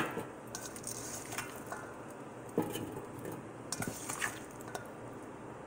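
Raw potato strips dropped by hand into a Power AirFryer's perforated basket, with scattered soft knocks and taps as they land on the basket and on each other. The louder taps come about two and a half seconds in and in a cluster around four seconds in.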